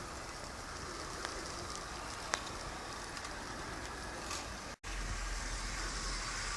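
Garden-railway model train running on outdoor track: a steady rumble and hiss with a couple of faint clicks. The sound cuts out for an instant about five seconds in, then comes back with a louder low rumble.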